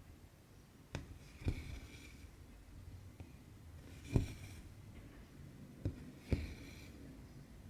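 Cross-stitching on 18-count Aida cloth: a needle pokes through the fabric with a small tick, and each tick is followed by a short rasping hiss as the cotton thread is pulled through. Three such stitches come a couple of seconds apart.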